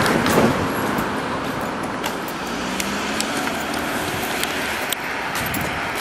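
Steady road traffic noise from cars driving along a multi-lane road, a little louder just at the start.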